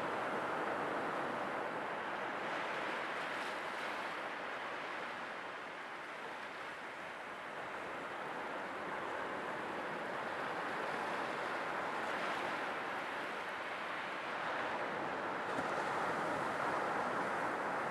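Sea waves washing ashore in a steady rush of surf that swells and ebbs slowly, with louder surges about a quarter of the way in and again near the end.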